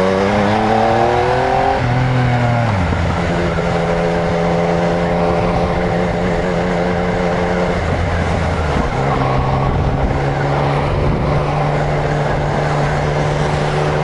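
Yamaha MT-09's inline three-cylinder engine pulling up through the revs for about two seconds, dropping in pitch, then running at a steady cruise with another brief dip and recovery about two-thirds of the way through. Steady hiss of wind and tyres on the wet road underneath.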